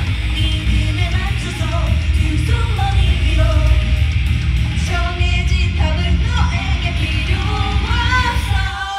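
Upbeat pop-rock idol song performed live, with a heavy bass beat, band instrumentation and female vocals singing.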